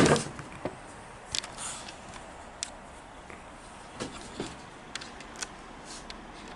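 A sharp knock at the start, then scattered light clicks and taps: hand tools being handled and set down.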